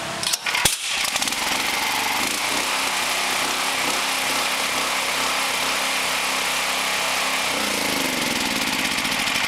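Lifan 15 hp horizontal-shaft engine running steadily, after a few brief knocks in the first second; its note shifts upward near the end.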